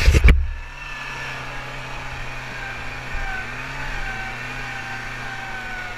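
Off-road buggy engine running at a steady speed while driving over rough ground, a low steady hum with a faint whine that drifts gently in pitch. A few loud thumps come right at the start.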